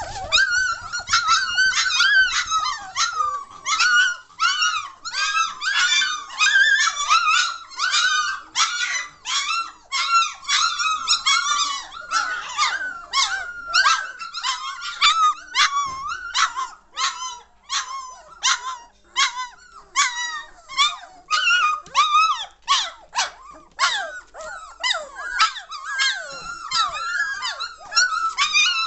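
Litter of three-week-old German Shorthaired Pointer puppies yelping and whining as they play, a steady run of short high-pitched calls, a few a second and overlapping.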